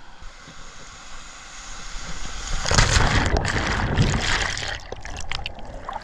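Ocean surf heard through a GoPro's waterproof housing. About two and a half seconds in, a wave breaks over the camera in a loud rush of churning water with sharp splashes, easing off near the end.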